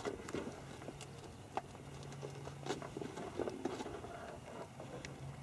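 Scattered light taps and clicks at irregular intervals over a faint steady low hum.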